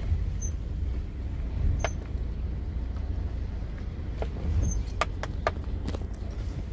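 Steady low rumble like wind buffeting the microphone, with a few scattered light clicks or taps about two, four and five to six seconds in.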